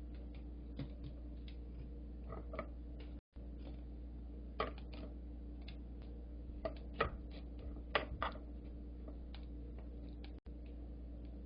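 Scattered light clicks and taps of kitchen utensils being handled, over a steady low hum, with the sound cutting out briefly twice.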